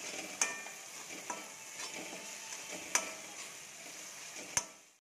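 Onion, tomato and curry leaves sizzling in hot oil in a kadai while a metal spatula stirs them, knocking sharply against the pan a few times. The sound cuts off abruptly just before the end.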